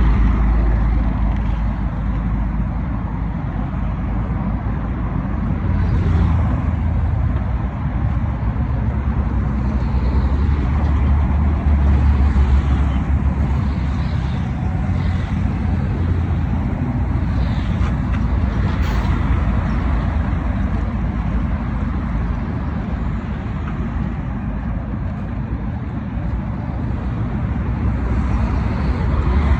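Road vehicle noise: a steady, loud low rumble with an even haze of engine and tyre noise, and no distinct events standing out.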